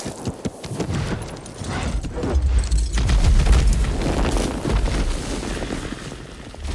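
Slowed-down film sound design: a deep rumbling boom that swells to its loudest about three seconds in, with scattered sharp cracks and thuds throughout, fading near the end.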